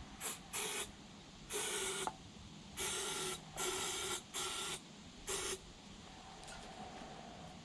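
Aerosol spray can hissing in about seven short squirts, some briefer than others, a shot of fuel sprayed into a two-stroke chainsaw's air intake to prime it for starting.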